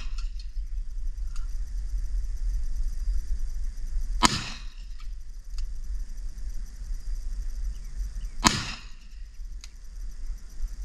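Two shots from a .500 S&W Magnum revolver, about four seconds apart, each a sharp crack with a short echo trailing off.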